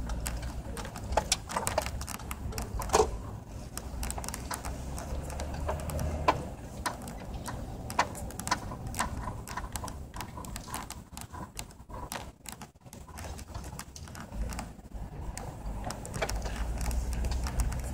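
Low rumble of a vehicle driving slowly, heard from inside the cabin, with scattered clicks and knocks. It eases off in the middle and grows louder again near the end.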